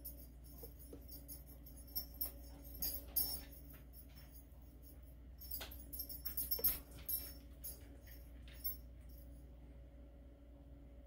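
Hot water poured slowly in a thin stream from an electric kettle into a glass tea infuser mug over loose leaf tea, with light, irregular crackling ticks. The sound comes in two spells with a short pause between, and stops a little after eight seconds in as the pour ends.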